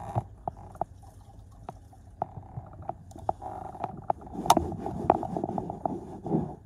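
A cloth rubbing and scrubbing on car floor carpet, with scattered sharp clicks and knocks. The rubbing is heaviest in the second half, and the loudest knock comes a little past the middle.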